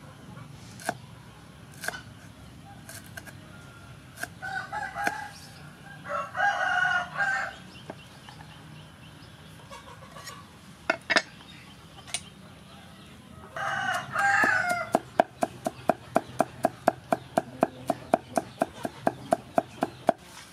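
Cleaver chopping on a wooden chopping board: a few separate strokes at first, then fast, even mincing of garlic at about four to five strokes a second in the last several seconds. A rooster crows in between, most loudly about six seconds in and again near the two-thirds mark.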